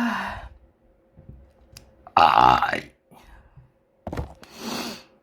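A woman burping loudly several times: one burp trailing off at the start, a long loud belch about two seconds in, and two shorter burps near the end.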